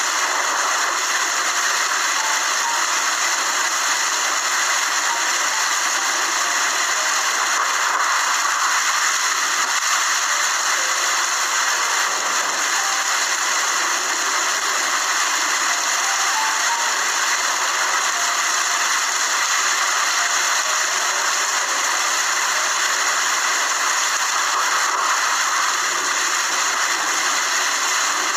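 Steady rain falling, an even hiss that keeps the same level throughout.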